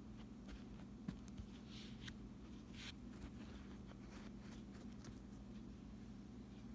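Faint taps and rustles of a toy dinosaur being moved about on carpet close to the phone, with two sharper knocks about a second in, over a steady low room hum; the tapping stops about five seconds in.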